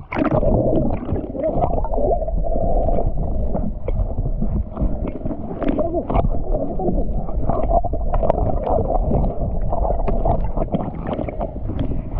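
Muffled water sound heard by a camera dipping in and out of the sea surface: continuous sloshing and gurgling with a low rumble, dull and without highs, as through a waterproof housing, with a few faint ticks.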